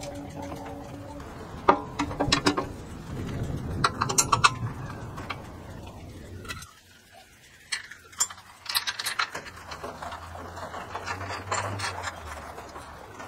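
Hand work on metal: a screwdriver turning slotted screws on a cylinder lawn mower's blade assembly, with scraping and sharp metal clicks. After a short pause about seven seconds in come more small metal clicks and clinks as parts are fitted by hand beside the mower's electric motor.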